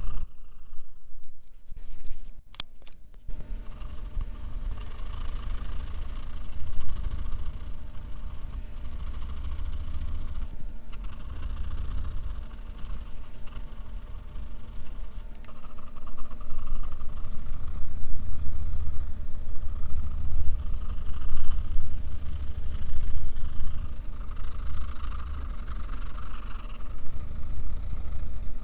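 Graphite pencil scratching across sketch paper while shading, over a steady low rumble. A few sharp clicks come about two to three seconds in.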